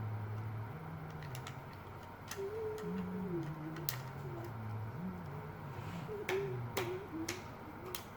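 Teddy Ruxpin's cassette mechanism playing its tape back far too slowly: a low, dragging, wavering drone as the tape barely turns. Scattered sharp clicks from the mechanism being handled.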